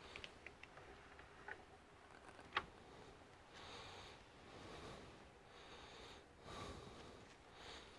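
Near silence with a few small handling clicks, one sharper click about two and a half seconds in, then several soft sniffs and breaths.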